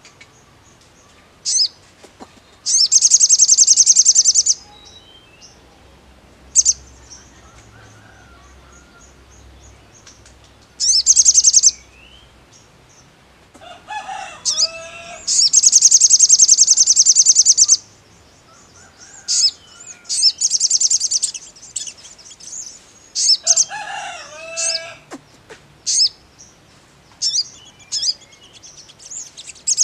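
Male olive-backed sunbird singing: loud, high, buzzy trills lasting a second or two, repeated several times, with short sharp chips between them. Lower falling phrases come in twice, about halfway through and again near the end.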